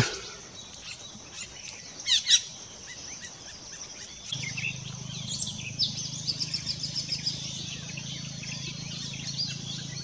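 Several wild forest birds calling, with two loud sharp calls about two seconds in and a quick run of high notes a few seconds later. Under them is a steady high hiss, and a low steady hum comes in about four seconds in.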